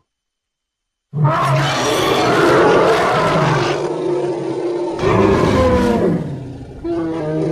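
Animal roar sound effects: after about a second of silence, a long rough roar, then two more starting about four and six seconds in.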